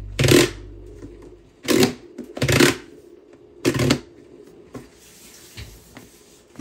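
Plastic push-pull rice bucket's sliding lid being pushed and pulled by hand: four short plastic scraping slides, then a few light clicks.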